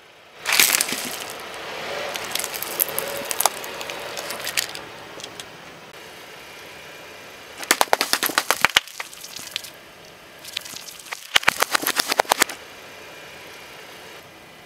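Car tyre rolling over a plastic mesh cup packed with candy: a loud crack about half a second in, then several seconds of crunching and crackling. Later, twice, a quick run of sharp pops as the tyre bursts a row of plastic ice-pop tubes.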